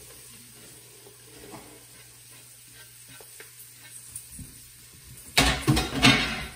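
Chopped onion and green pepper being stirred into hot roux in a pot. It is faint at first, then a loud burst of sizzling and scraping lasts about a second near the end.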